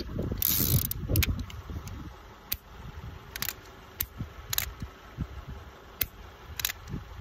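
A revolver's cylinder gives a short ratcheting whir at the start. Then come a series of sharp single clicks about a second apart as the trigger is pulled and the hammer falls without firing.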